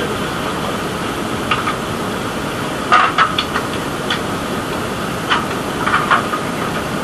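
Steady engine and machinery noise aboard a fishing trawler, with a scatter of short clicks and knocks over it, the loudest cluster about three seconds in.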